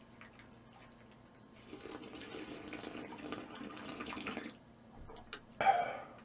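A person slurping a drink from a small plastic cup: a steady liquid sound for about three seconds, then a short louder sound near the end.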